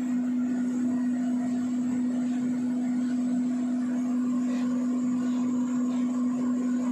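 AERIS 10 HP oil-lubricated rotary screw air compressor running, its electric motor and twin-screw air end giving a loud, steady hum on one even pitch over a spread of machine noise.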